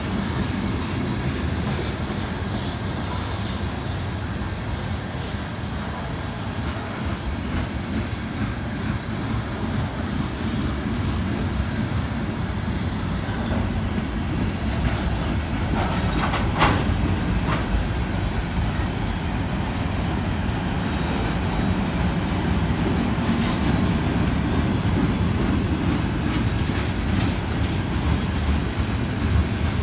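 Freight train of loaded tank cars and covered hoppers rolling past: a steady rumble of wheels on rail with repeated clicking over the rail joints. About halfway through there is one brief, sharper metallic noise.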